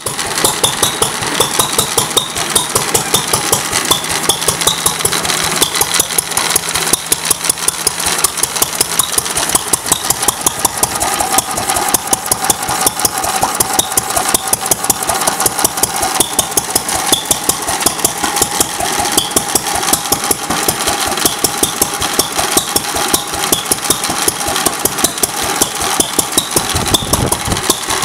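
Fairbanks-Morse ZC-52 3 hp single-cylinder oil field engine running steadily under its governor, with an even firing beat about three times a second.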